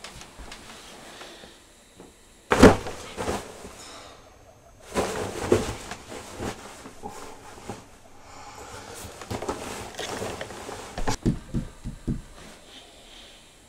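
Bedding rustling and a mattress thumping as a person tosses and turns in bed: a sharp burst of rustling about two and a half seconds in, longer rustling stretches in the middle, and a few soft thumps near the end.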